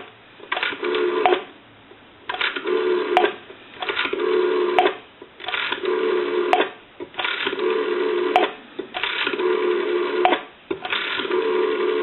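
Stainless steel rotary dial of a GPO P&T 606 desk telephone being dialed digit after digit, about seven times, each pull and spring return a short whirring run with clicks, roughly every second and a half. The dial has been cleaned, adjusted and oiled and turns smoothly.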